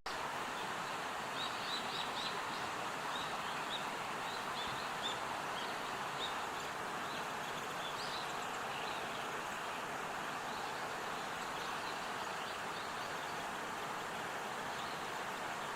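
Countryside ambience: a steady rushing noise with a scattered run of short, high bird chirps through the first half.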